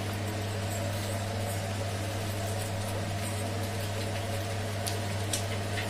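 A steady low electrical or motor hum runs throughout, with a few faint light clicks of a wooden spatula stirring thick masala gravy in a non-stick pan near the end.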